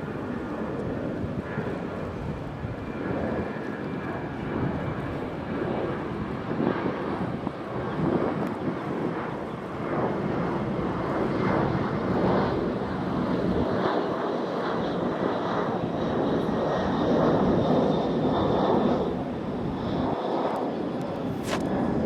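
Jet airliner passing close by: a sustained rush of jet engine noise with a faint high whine, growing a little louder in the second half.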